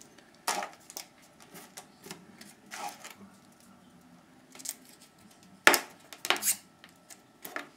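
Small plastic and foam parts of a toy plane being handled and worked loose: scattered light clicks and crackles, with the sharpest clicks a little past two-thirds of the way through.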